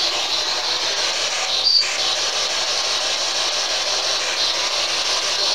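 Steady loud static hiss from a spirit box radio, with a brief high-pitched blip a little under two seconds in.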